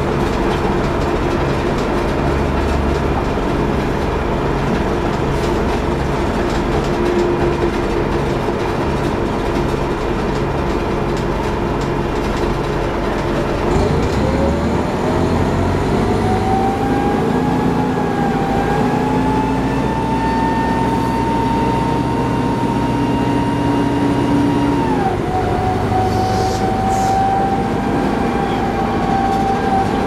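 Inside a 1994 TMC RTS transit bus with a Detroit Diesel Series 50 engine and Allison VR-731 automatic transmission: steady engine and road noise. About halfway through, a drivetrain whine rises in pitch as the bus accelerates, drops a little over ten seconds later at an upshift, then starts climbing again.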